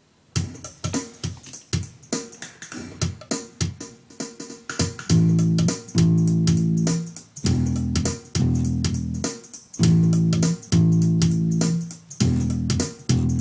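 Instrumental song intro: an electric bass guitar played along to a backing track with a steady beat. About five seconds in, long held chords come in over the beat.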